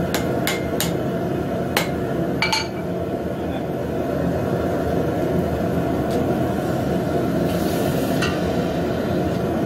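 Metal tools working a freshly forged steel leaf: five sharp metallic clinks in the first three seconds and a brief scrape near the end, over a steady low roar.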